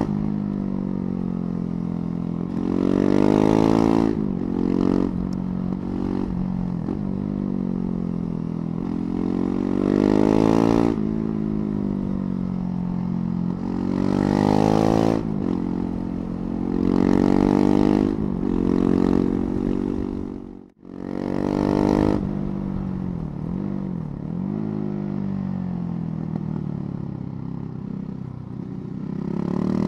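KTM 690 Duke's single-cylinder engine under way, its note rising in pitch and loudness on the throttle and falling back off it about five times as the bike takes a string of bends. The sound cuts out for an instant about two-thirds of the way through.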